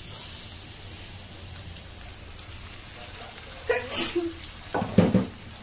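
Steady hiss of food sizzling in a wok as spiced liquid is poured in, followed by two brief, louder knocks near the end.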